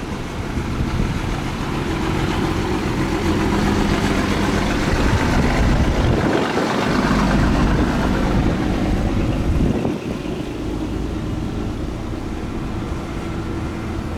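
Diesel engine of heavy road-construction machinery running steadily. It grows louder over the first several seconds, then drops suddenly about ten seconds in.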